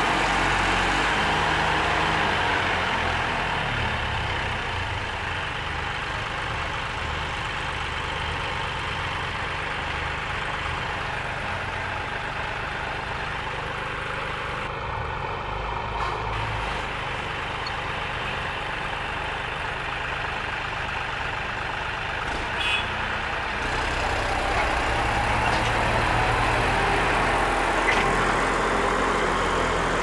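Diesel engines of a John Deere tractor and a JCB 3DX backhoe loader running steadily. The sound dips a little after the first few seconds and grows louder again over the last several seconds.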